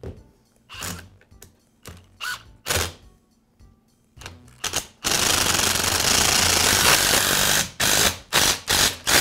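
Cordless impact driver driving screws home: several short bursts, then about five seconds in a continuous run of rapid hammering lasting nearly three seconds, followed by a few short bursts as the screws seat.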